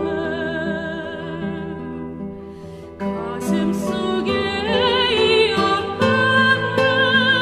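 A soprano sings a slow ballad with wide vibrato over a gentle instrumental accompaniment. The music softens about a second in and swells again with a new phrase about three seconds in.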